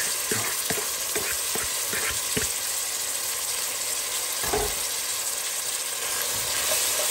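Saltfish (salted cod) with onion, peppers and tomato sizzling in oil in a cooking pot: a steady hiss with light crackles and pops over the first couple of seconds, and one low thump about halfway through.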